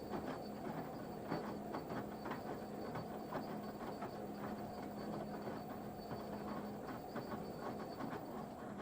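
Washing machine running its wash cycle: a steady motor hum with irregular clicks and knocks as the drum turns. The hum drops out about seven seconds in.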